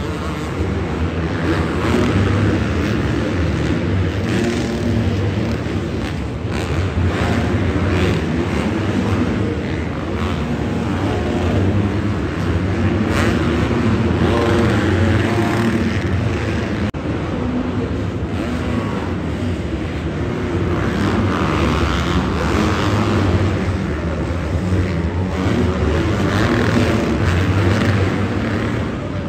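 Several dirt bike engines revving up and down as the bikes race around an indoor arenacross track, one engine note swelling over another.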